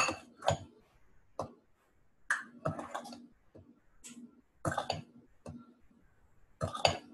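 Scattered kitchen clatter: measuring cups and bowls knocking and clinking as sugar is measured out, in short separate bursts heard through video-call microphones.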